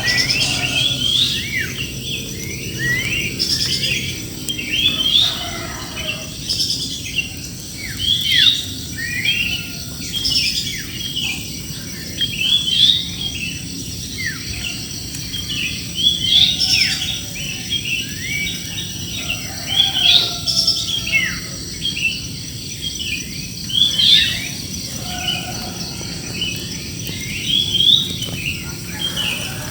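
A chorus of many birds chirping and singing together in a large tree, with short calls and quick downward-sweeping notes overlapping without a break.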